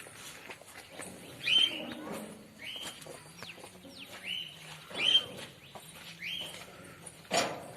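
A bird calling over and over, a short harsh note with a quick falling sweep about once every second or so, with a louder short noise near the end.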